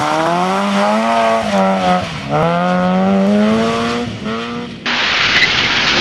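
Rally car engine revved hard through a corner, its pitch climbing, dipping at each gear shift and climbing again. About five seconds in, the sound cuts abruptly to a rushing hiss of another car sliding on loose gravel.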